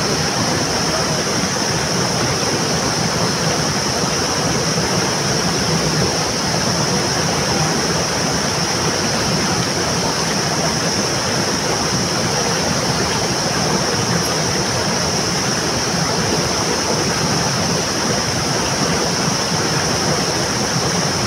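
Rushing river water, a steady, unbroken wash of noise with a constant high hiss over it.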